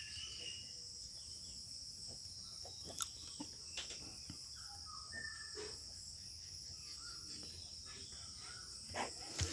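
Faint scratching of a ballpoint pen writing on paper, with a few soft clicks and taps, over a steady high-pitched chirring of crickets.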